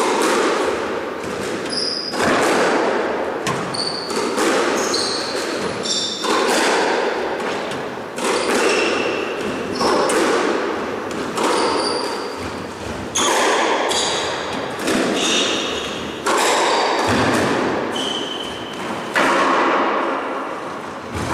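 A squash rally: racquet strikes and the ball hitting the walls, about one sharp knock a second, each ringing on in the court's echo, with short high squeaks of sneakers on the wooden floor.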